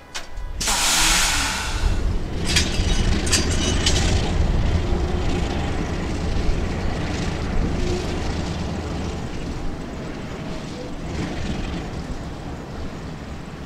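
Buffalo Southern Railroad diesel switcher locomotives running slowly past, their engines rumbling steadily and fading somewhat as they move away. A loud hiss of air comes about half a second in, lasting about a second and a half, with a few shorter hissing or squealing bursts after it.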